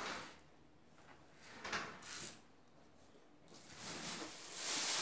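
Off-camera rummaging: a few short scrapes in the first two seconds, then a plastic bag rustling and crinkling, growing louder near the end.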